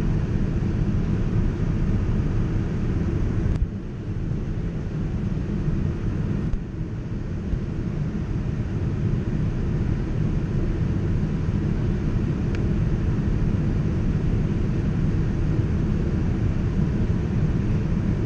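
Steady cabin noise of a Boeing 787-9 airliner in flight on descent: a low rumble of airflow and engines heard from a window seat. It dips briefly twice a few seconds in.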